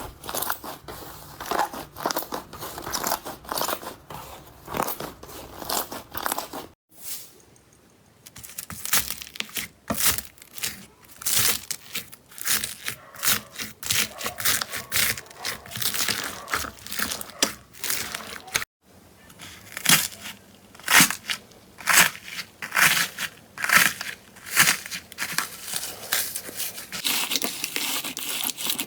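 Slime being squeezed and pressed by hand, giving irregular crisp crackles and pops, with two brief pauses.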